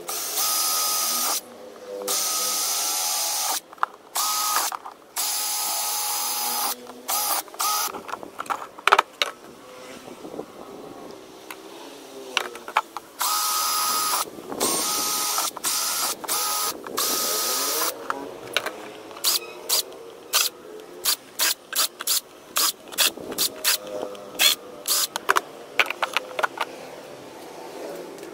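Cordless drill drilling holes through a thin plastic box lid, run in repeated bursts of about a second of steady high-pitched whine. Toward the end come many brief, quick trigger blips in close succession.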